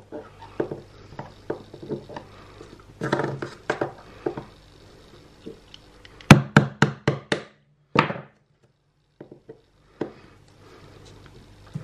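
Flat-head screwdriver tapping and prying at the cut seam of a sealed plastic BMW key fob case to split it open, giving sharp plastic clicks and knocks. Scattered taps give way about six seconds in to a quick run of about six sharp taps, then one more.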